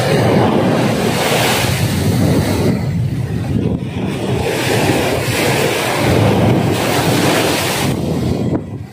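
Sea surf washing on a rocky shore, mixed with wind buffeting the microphone. The loud rushing swells and eases every couple of seconds and drops away near the end.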